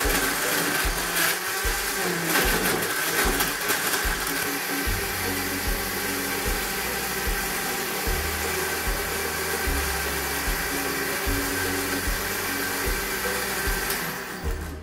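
Countertop blender running steadily, puréeing frozen mixed berries with honey and water, then switching off near the end.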